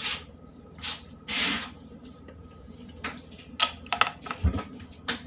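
Rubber curry brush swiping through a bulldog's short coat, a few brisk hissing strokes in the first two seconds. Several sharp clicks and knocks follow about three to five seconds in as the camera is handled.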